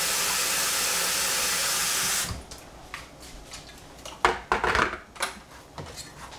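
Kitchen tap running steadily, adding water to a vessel for boiling, then shut off a little over two seconds in. A few short knocks and scrapes follow.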